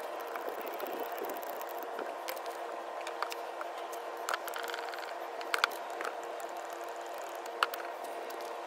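Hand grease gun pumping grease into the steering linkage's tie-rod and idler-arm joint fittings, with a few short clicks and squishes over a steady mechanical hum.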